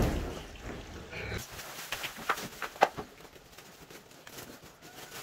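A thump at the start, then scattered rustles and crackles of woven plastic rice sacks being handled, with a sharper crackle near the middle.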